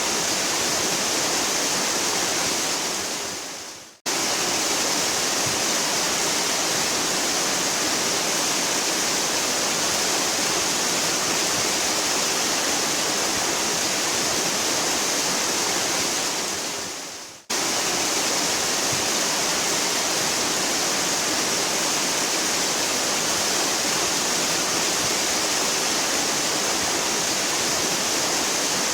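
Waterfall: a steady, hard rush of falling water. About 4 seconds in and again about 17 seconds in, it fades out over a second or two and then cuts straight back in at full level.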